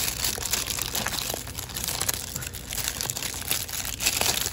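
Plastic packaging crinkling and rustling in irregular bursts as it is handled and opened.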